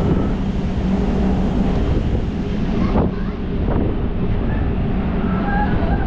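Wind buffeting the microphone, a dense low rumble, over a steady low hum.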